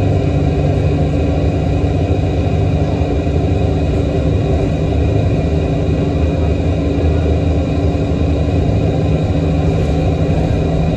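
TTC 1353 diesel city bus heard from inside the passenger cabin while driving: a steady engine drone with road rumble.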